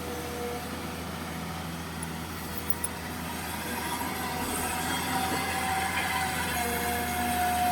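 Komatsu PC200-6 excavator running steadily at work, a low diesel hum with a high whine over it that grows louder about halfway through.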